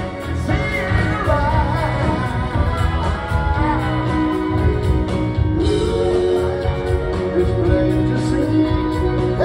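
Live rock band playing a song with lead vocals, electric guitar, drums and keyboard, as heard from the audience.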